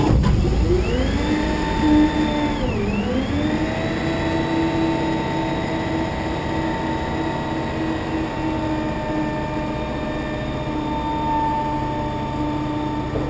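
Hooklift truck's engine running at raised speed to drive its hydraulics, with a steady whine as the hook arm hoists and tilts the dumpster. The pitch rises in the first second or so, dips briefly about three seconds in, then holds steady.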